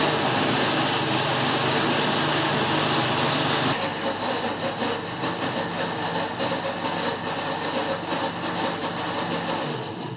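Electric kitchen mixer motor running loud and steady while beating chocolate cake batter. Its hum shifts about four seconds in, and it stops near the end.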